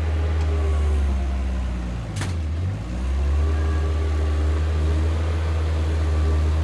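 An engine running steadily with a deep hum; about two seconds in its pitch dips briefly and comes back up, and there is a single click.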